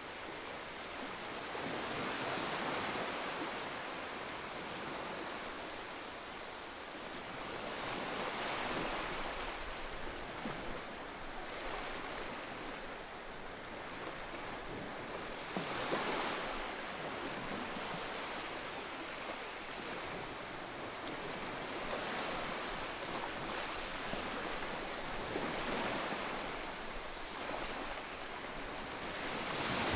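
Ocean waves breaking and washing on a shore, swelling and fading every few seconds in a slow, irregular rhythm.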